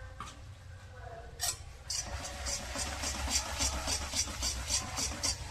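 A spoon scraping round a kadhai, stirring thickened melted jaggery so that it doesn't stick. There is a knock about a second and a half in, then quick, even scraping strokes about three or four a second.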